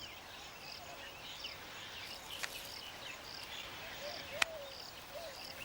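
Faint outdoor bird and insect ambience: a short high chirp repeating about once a second over soft scattered twitters. Two sharp clicks stand out, about halfway through and again near the end.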